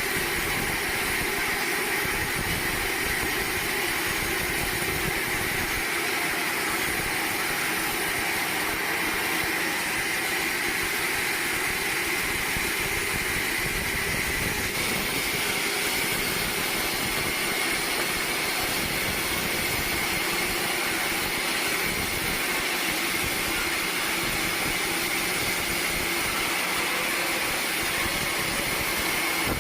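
Sawmill machinery running steadily: a constant mechanical drone with a steady high whine over it, unchanging throughout.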